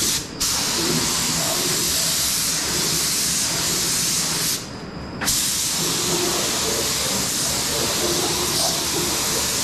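Air-fed paint spray gun hissing steadily while spraying epoxy top coat, the trigger let off twice: briefly near the start and for about half a second halfway through.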